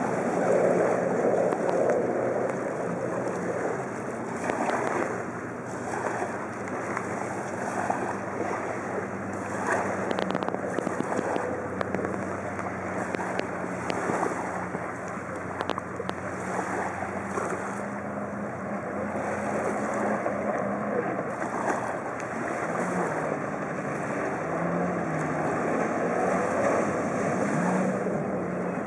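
Jet ski engine running at speed across open water, a steady drone that wavers up and down in pitch in the later part as the throttle changes. The rush of its spray runs under it.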